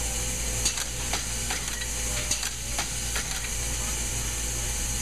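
Automated plant bedding machinery running: a steady hum and hiss, with several light clicks in the first three seconds or so.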